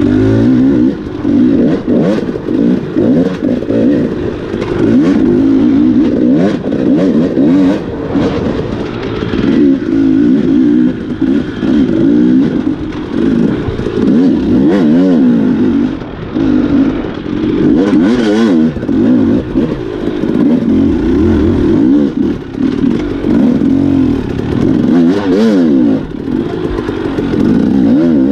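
Enduro dirt bike engine being ridden hard, its revs rising and falling constantly with the throttle and gear changes, with occasional clatter.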